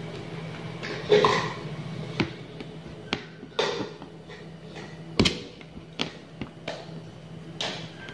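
Aari hook needle punching in and out of fabric stretched taut on an embroidery frame, making irregular sharp taps and clicks about once or twice a second as glass sugar beads are stitched down, over a steady low hum.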